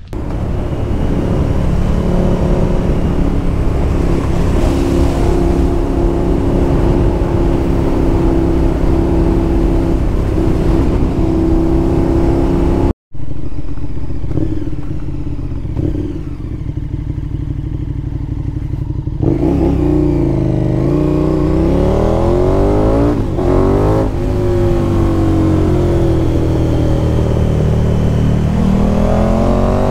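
KTM 1290 Super Duke R's V-twin engine running steadily. After a momentary dropout about thirteen seconds in, it accelerates hard, its revs climbing and falling again and again as it pulls through the gears.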